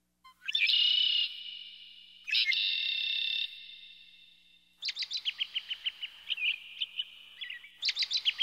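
Birdsong: two long high calls of about a second each, each trailing off, then a quick run of rapid repeated chirps and trills.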